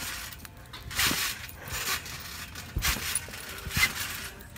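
A trampoline in use: a few dull thumps as a body lands on the mat, with scuffing and rubbing noise of bare skin on the mat between them.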